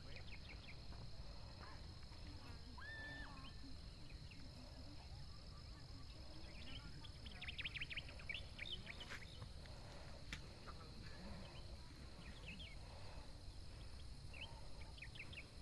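Small birds chirping and calling on and off, with a quick trill about eight seconds in and a short held whistle about three seconds in, over faint outdoor background noise and a steady high hum.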